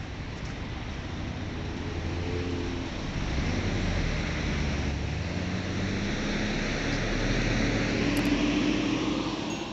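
City road traffic passing close by: a steady wash of tyre and engine noise, with vehicle engines rising in pitch as they accelerate past, loudest in the later seconds.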